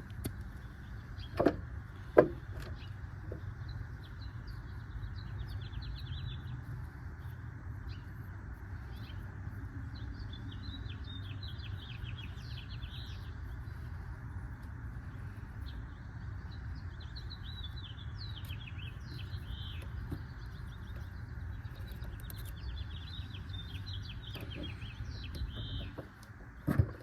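Small birds chirping in short bursts over a steady low hum. Two sharp clicks come a second and a half and two seconds in, and another comes near the end.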